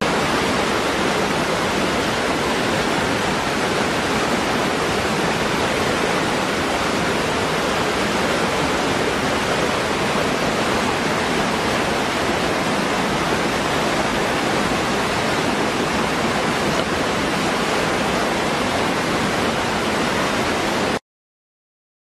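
Small waterfall pouring into a rocky pool: a steady, even rush of water that cuts off suddenly about a second before the end.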